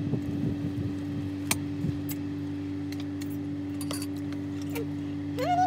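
Metal cutlery clinking against ceramic bowls and plates as people eat, a few separate clinks over a steady background hum. Near the end a wavering, voice-like call begins.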